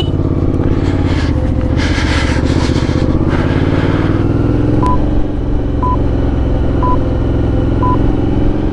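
Motorcycle engine running steadily as the bike rides along a lane, with wind noise on the helmet camera early on. From about five seconds in, a short electronic beep sounds once a second: a countdown timer.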